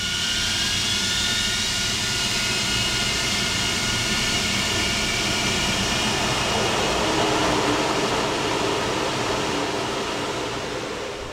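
A single Avro Vulcan B.2 Rolls-Royce Olympus turbojet at full throttle, heard from inside the cockpit: a steady jet roar with several high whining tones over it, the Vulcan's full-throttle howl. It eases off over the last couple of seconds.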